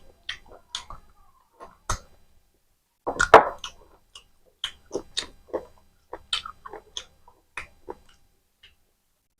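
Close-miked eating sounds of a person chewing mutton curry and rice: a string of short wet mouth clicks and smacks, with a louder, busier stretch of chewing about three seconds in.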